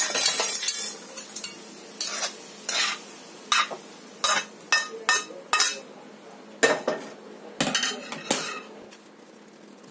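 A spoon scraping and knocking thick cooked semolina burfi mixture out of a pan onto a greased steel plate. A longer scrape at first, then about a dozen short, irregular scrapes and taps, thinning out near the end.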